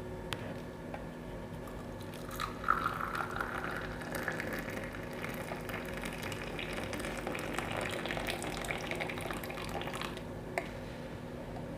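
Hot tulsi-ginger milk tea poured from the pan through a strainer into a cup: a steady liquid pour starting about two and a half seconds in and running for several seconds. A couple of light clicks come before and after it.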